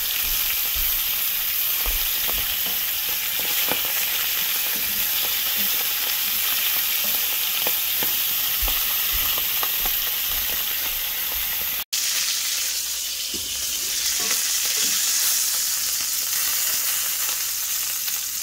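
Squirrel pieces sizzling steadily as they brown in a hot cast-iron skillet, with scattered light clicks of tongs turning the meat against the pan.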